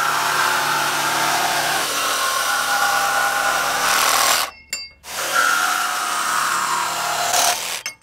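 Ryobi jigsaw with a metal-cutting blade running and cutting through 1/8-inch aluminum sheet, a steady buzzing saw sound. It breaks off briefly about four and a half seconds in, then cuts again and stops near the end.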